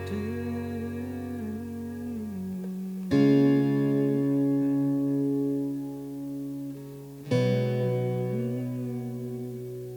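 Guitar played through a Wampler Ethereal delay and reverb pedal: chords struck about three and seven seconds in, each ringing out and slowly fading, with a wavering line of notes moving above them.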